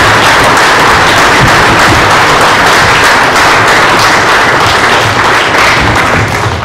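Audience applauding: steady, dense clapping that begins to die away near the end.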